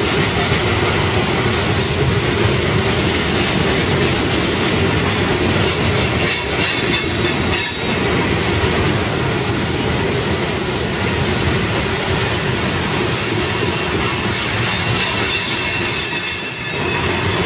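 Coal hopper cars of a freight train rolling past at close range: a steady, loud rumble of steel wheels on rail. A faint high wheel squeal rises twice, about six seconds in and again near the end.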